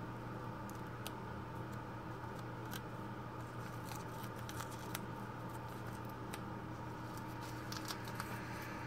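Hands handling small items close to the microphone: faint scattered clicks and light crinkling, a little busier near the end, over a steady low hum.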